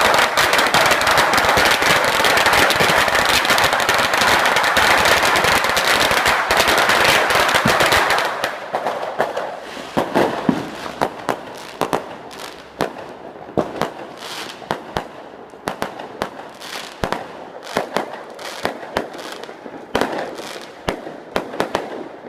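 Firecrackers going off in a dense, rapid rattle for about eight seconds, then thinning out to scattered separate pops and bangs.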